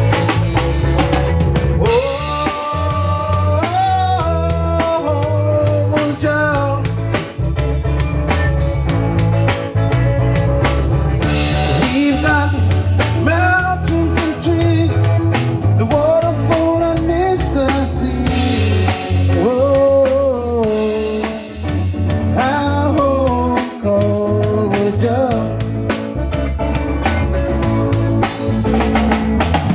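Live band of two electric guitars, electric bass and drum kit playing an instrumental stretch. A lead electric guitar line bends up and down in pitch over steady bass and drums.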